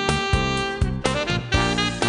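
Background music: upbeat jazzy instrumental with saxophone and a steady beat.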